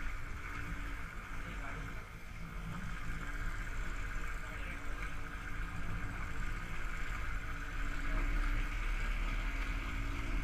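Royal Enfield Thunderbird's single-cylinder engine running steadily as the motorcycle cruises, heard from the rider's seat along with road noise.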